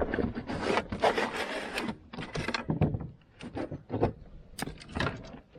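Close handling noises: irregular rubbing and scraping with sharp knocks and clicks, easing off for a moment about halfway through, as gear or the freshly caught fish is shifted about near the microphone.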